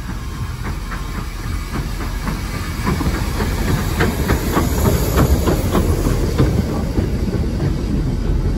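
Steam-hauled train running on jointed track: a low rumble with a quick run of wheel clicks and wagon clanks, getting louder over the first few seconds and then holding.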